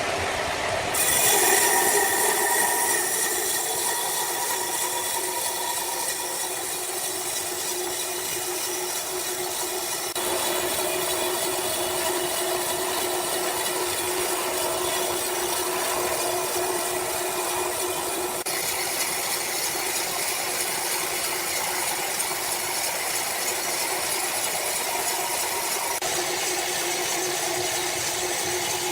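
Sawmill saw running steadily while cutting through a log: a continuous hissing, grinding machine noise with a steady hum. The sound shifts abruptly several times.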